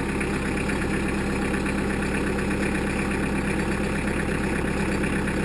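New Holland Boomer 35 compact tractor's diesel engine idling steadily at an even pitch.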